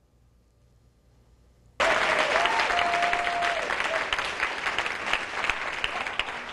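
Near silence, then about two seconds in audience applause starts abruptly and continues, with one held note sounding over it for about a second and a half.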